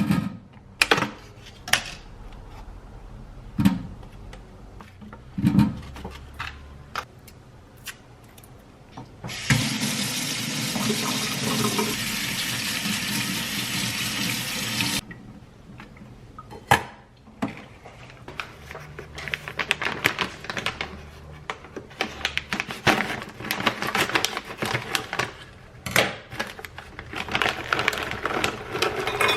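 Kitchen tap running into a sink for about five seconds, then cutting off, between scattered knocks and clinks of kitchen utensils and dishes.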